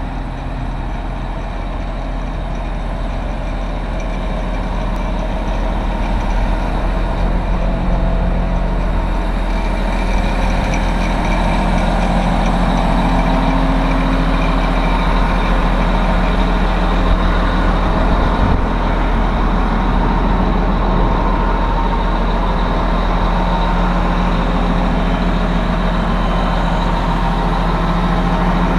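Caterpillar 966G Series II wheel loader's diesel engine idling steadily, growing louder over the first several seconds and then holding level.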